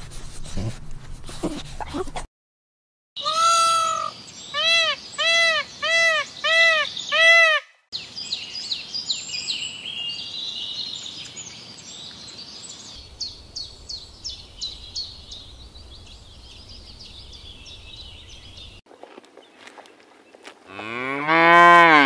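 Six short, high, arching animal calls a few seconds in, then a long stretch of fast high-pitched chirping. Near the end comes a cow's single long moo that rises and falls in pitch, tied with the calls as the loudest sound.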